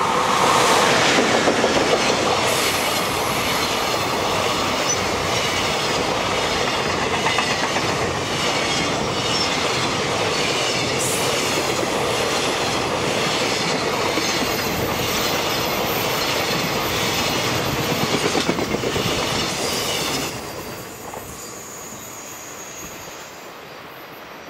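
Container freight train hauled by an EF510 electric locomotive passing close by, loudest in the first couple of seconds as the locomotive goes by. A steady rumble of wagon wheels follows, with a rhythmic clickety-clack over the rail joints. It drops off sharply about twenty seconds in as the last wagon passes, then fades away.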